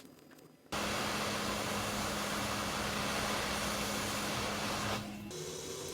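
Hot-air rework station blowing, a steady rush of air with a hum underneath, starting abruptly about a second in and dropping somewhat near the end.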